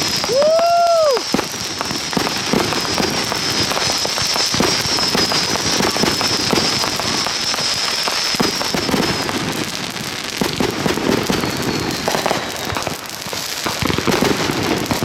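Fireworks going off continuously, a dense run of crackling and popping. A high whistle holds for most of the first nine seconds, and a short tone rises and falls about a second in.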